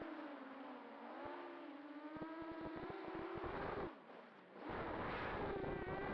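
250-size racing quadcopter's four 2206 brushless motors and propellers buzzing in flight, the pitch wavering up and down with throttle. About four seconds in the sound drops away briefly as the throttle is cut, then comes back louder.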